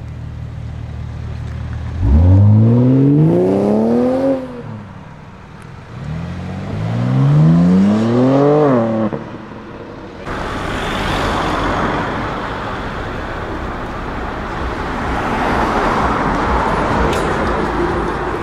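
BMW M3 G80's twin-turbo straight-six idling, then accelerating hard in two pulls, its note rising steeply each time before dropping off sharply, from about two seconds in. Later comes a steady, rough rush of car noise with no clear engine note.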